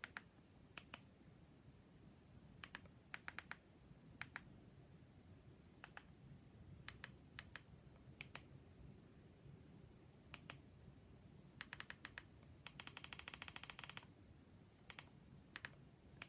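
Faint clicks of remote-control buttons being pressed to type on an on-screen keyboard, mostly one to three presses at a time every second or so, with a rapid run of clicks about three-quarters of the way through.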